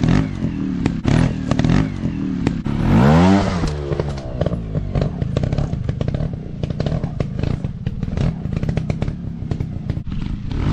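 Off-road trail motorcycle engine running at low revs, with one quick rev about three seconds in that rises and falls in pitch. Many short clattering knocks run through it.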